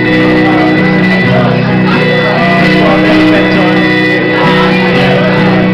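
Live band playing loudly on electric guitars and drums, the instrumental opening of a rock song.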